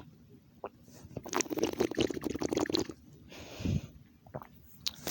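Wet mouth sounds close to the microphone: a stretch of crackly smacking and slurping, followed by a short breathy hiss.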